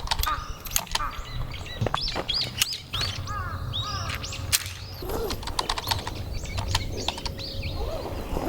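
Wild birds chirping outdoors, many short repeated arching calls, with a few sharp knocks in the first few seconds.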